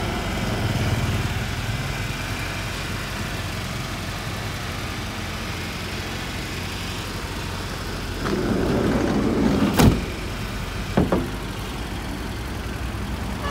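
Toyota Hiace van's engine idling steadily. About eight seconds in, the sliding side door rolls along its track for a second or so and slams shut with a loud bang, followed by a lighter knock about a second later.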